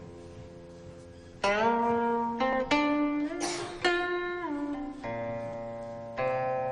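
Background music from a plucked string instrument playing slow, separate notes. Several notes slide in pitch after they are plucked.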